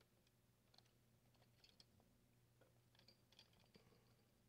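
Near silence with faint, irregular crackling ticks: rosin flux sizzling and popping as a soldering iron heats copper desoldering braid on a solder joint.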